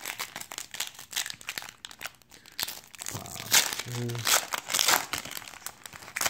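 Foil wrapper of a baseball trading-card pack crinkling and tearing as it is ripped open by hand: a dense run of crackles, louder in the second half.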